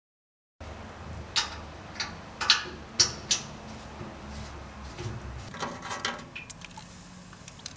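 Thread-cutting machine and its handling: a steady low hum with a series of sharp mechanical clicks and knocks, five strong ones in the first few seconds and a quicker cluster of lighter ones later.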